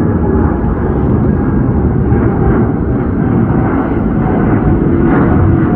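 Jet airliner on its landing approach, engines giving a loud, steady rumble with a faint whine over it.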